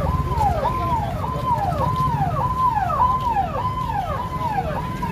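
Electronic siren-like alarm repeating about one and a half to two times a second: each cycle is a held high note that slides down. It sounds over a low background rumble of street noise.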